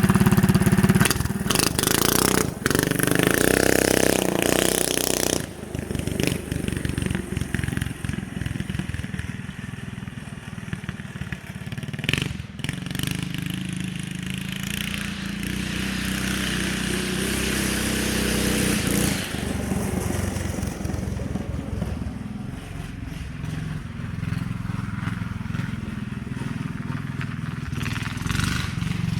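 Yerf Dog go-kart's small engine running, loud and revving for the first five seconds, then fainter and rising and falling with the throttle as the kart drives away.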